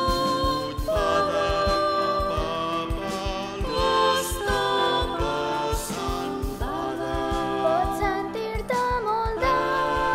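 Background music: a song with sung vocals over a steady beat.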